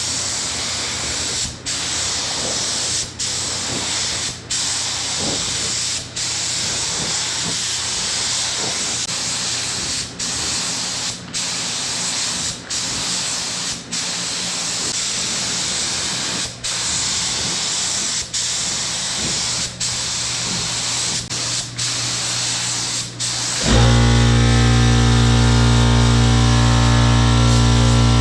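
Compressed-air paint spray gun hissing as it lays a heavier coat of clear coat, broken by many short pauses between passes. Near the end it gives way to music.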